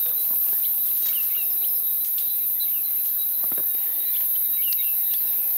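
Steady, high-pitched drone of a chorus of insects, with short bird chirps scattered through it.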